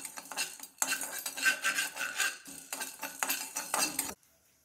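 Black plastic spatula stirring and scraping black peppercorns and cumin seeds as they dry-roast in a non-stick kadai, in several runs of strokes with short breaks; it stops suddenly about four seconds in.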